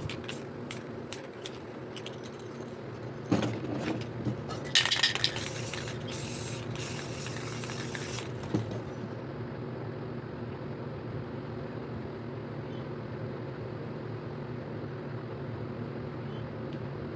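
Aerosol spray paint can: a quick run of rattling clicks for the first couple of seconds, a few short spurts about three seconds in, then a loud spraying hiss of about three seconds, over a steady low hum.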